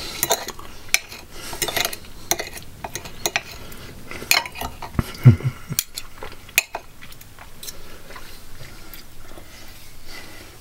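Knife and fork clinking and scraping against a plate while cutting through a baked chicken enchilada. The clinks are busiest and loudest in the first six seconds, then sparse and faint.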